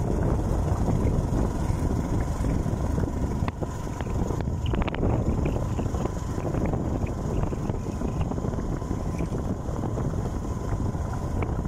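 Riding a motorcycle: wind rushing over the microphone over steady engine and road noise, with a few knocks about four to five seconds in.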